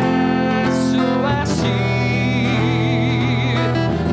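A man singing to his own acoustic guitar accompaniment, holding a long note with vibrato in the middle.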